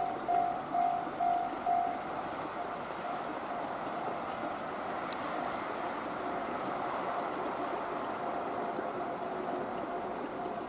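Japanese railway level-crossing alarm bell ringing, an evenly repeated ding about twice a second, which stops about two seconds in. After it comes the steady rush of cars passing on the road, with a single sharp click about five seconds in.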